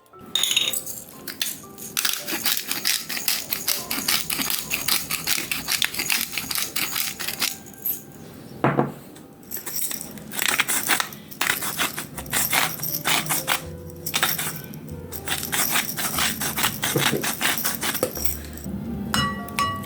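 Knife chopping quickly on a cutting board, many strokes a second, with a few short pauses, over background music.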